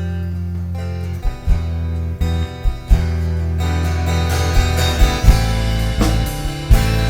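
A live rock band plays an instrumental passage: electric guitars over held bass notes, with scattered drum hits. About four seconds in, the music grows fuller and brighter.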